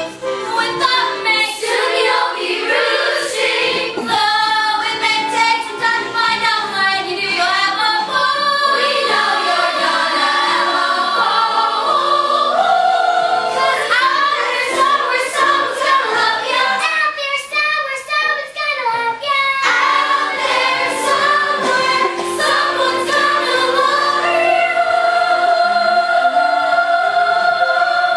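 Young cast singing a musical-theatre number together over backing music, ending on a long held note.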